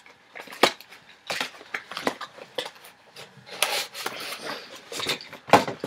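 White cardboard box being pried open and unfolded by hand: flaps and folded inserts scraping, creasing and snapping in a run of irregular clicks and rustles, with a sharp snap about half a second in and another near the end.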